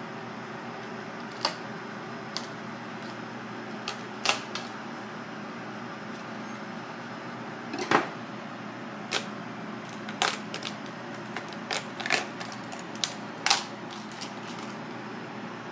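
Sharp, irregular clicks and cracks as a knife pries at a mud crab's shell on a cutting board and the shell is broken open. The loudest crack comes about eight seconds in, with a cluster of smaller ones after it, over a steady background noise.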